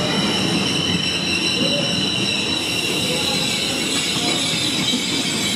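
Trenord passenger train rolling slowly along the platform, its wheels rumbling under a steady high-pitched squeal.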